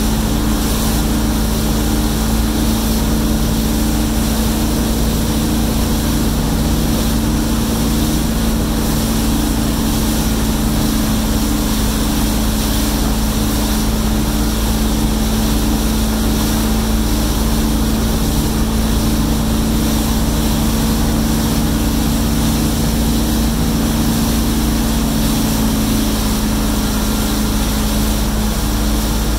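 Wake boat's inboard engine running steadily at surfing speed, a constant drone, with the rush of the churning wake behind the boat.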